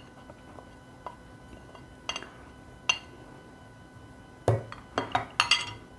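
A spoon clinking against a bowl and spice containers as spice powders are spooned in: a few single light clinks, then a quick run of louder clinks near the end.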